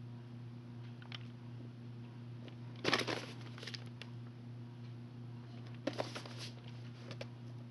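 A VHS tape in its worn rental sleeve handled by hand, with two short bursts of rubbing and rustling: one about three seconds in as it is turned to show its spine, and one about six seconds in as it is set aside. A steady low hum runs underneath.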